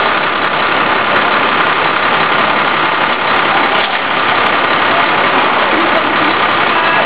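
Steady city street din: vehicle engines running in traffic, with voices mixed in.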